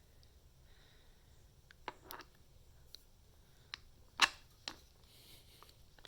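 A handful of short, sharp metal clicks as an impact socket is worked onto the impact wrench's square anvil and snaps over the detent ball. The loudest click comes a little past four seconds in.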